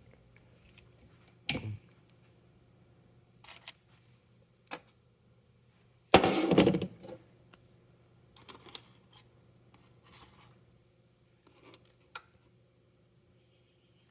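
Scattered knocks and handling clatter, the loudest a short rattling thump about six seconds in, over a faint steady low hum.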